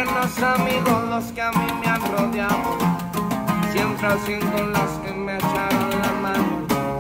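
Music track with plucked guitar.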